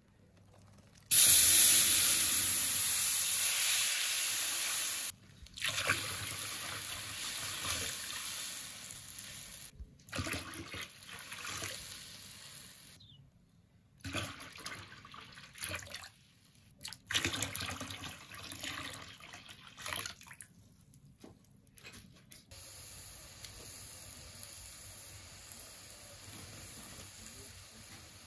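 Tomato juice poured from a glass jar into a cast-iron kazan in several separate pours, the first the loudest, splashing and gurgling as it fills the pot. Near the end, a quieter steady hiss as the juice heats in the pot.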